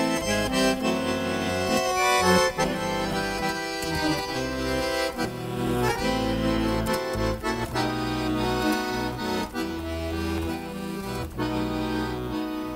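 Instrumental introduction of an old Russian romance-style song: accordion playing the melody over chords and a bass line.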